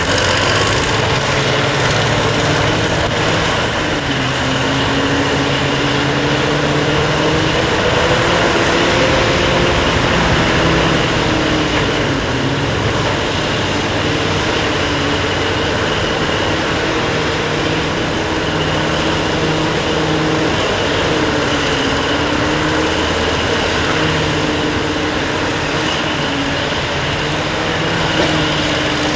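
Heavy machinery running steadily: the engine of an idling coal-hauling tractor-trailer and an electric loading shovel at work. The low hum slowly wavers up and down in pitch.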